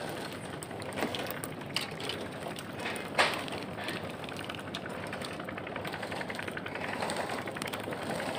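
Handling noise while small fish are unhooked from a sabiki rig: a few sharp knocks and taps over steady background noise, the loudest about three seconds in.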